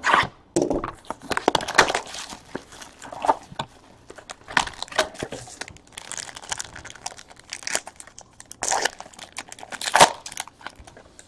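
Foil and plastic wrappers crinkling and tearing as a sealed trading-card box is opened and its foil-wrapped pack pulled apart: an irregular run of crackles.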